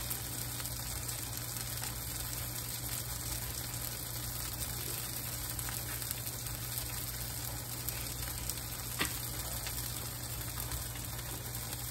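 Yellow squash and onions frying in oil in a cast-iron skillet over medium-high heat, a steady sizzle as they brown. A single click about nine seconds in.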